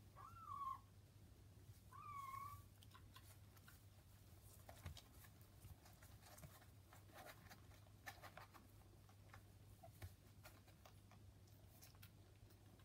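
A kitten mews twice, two short high calls in the first few seconds, then faint scattered clicks and rustles as the nursing kittens shift about on newspaper.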